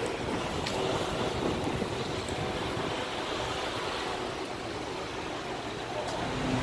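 Steady outdoor background rush with no distinct engine note, and a few faint clicks, one a little under a second in.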